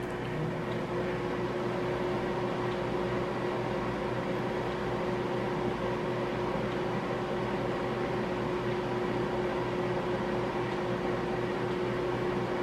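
Microwave oven running: a steady hum with one constant low tone. It is heating parchment paper, and nothing inside crackles or sparks.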